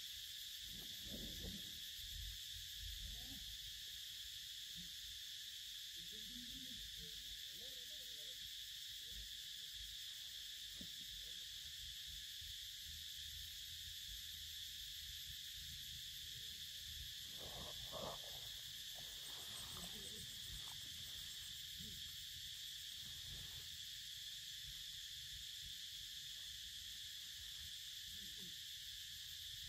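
Steady high-pitched chorus of insects, with soft rustling of dry leaves and a young monkey chewing and handling a mango close by; one rustle stands out a little louder about eighteen seconds in.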